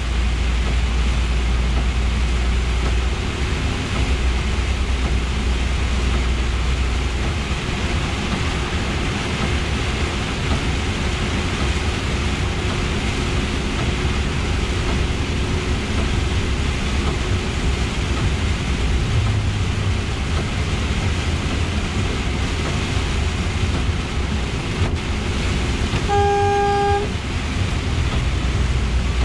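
Scania R420 truck driving in heavy rain, heard from inside the cab: a steady engine drone under the hiss of tyres and rain on the wet road. Near the end a single horn-like tone sounds for about a second.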